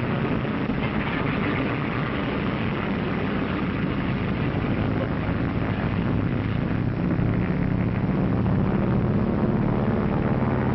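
Propeller engines of massed bombers droning steadily; the low drone swells louder about two-thirds of the way through.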